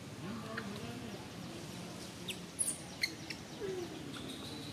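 Outdoor ambience: scattered short, high chirps and a few clicks over a faint low murmur, with a thin steady whistle near the end.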